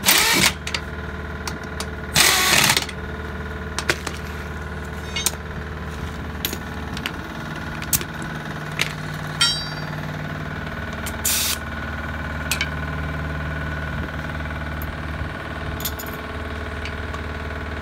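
Pneumatic impact wrench firing in short bursts on a truck wheel's lug nuts: one right at the start, a longer one about two seconds in, and a shorter one about eleven seconds in, with scattered metal clicks and clinks between. A steady engine idles underneath throughout.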